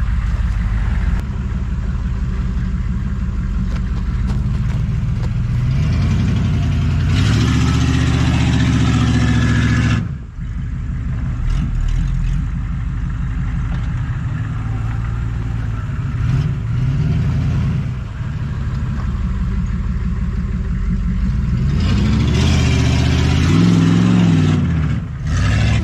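Humvee's V8 diesel engine working under load on a steep dirt climb, revved up hard twice, about six seconds in and again near the end, each time easing off after a few seconds.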